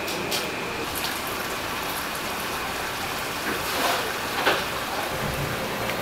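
Steady hiss of water running or bubbling in live-eel holding crates, with two short splashes about three and a half and four and a half seconds in.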